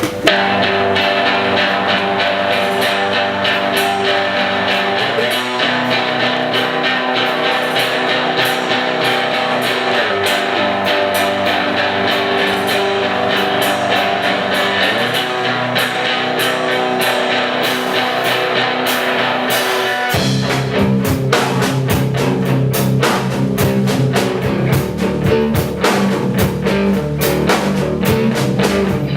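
Rock music with electric guitar and drums playing steadily. About twenty seconds in, the low end fills out sharply as bass and a harder beat come in.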